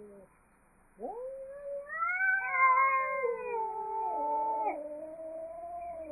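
Angry domestic cats caterwauling: after a short pause, long drawn-out yowls start about a second in, rising sharply at the onset. From there the yowls overlap and waver in pitch.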